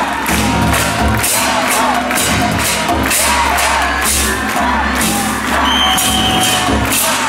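Minshingaku, Chinese-style festival music, played with a steady percussion beat for a Chinese-ship float as it is hauled and turned. Short calls and whoops from the haulers and crowd rise over it.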